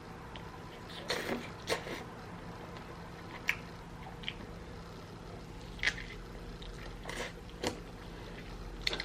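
Wet eating sounds of someone chewing a sauce-covered smoked turkey leg: scattered lip smacks and squishes, about eight or nine sharp smacks at irregular intervals.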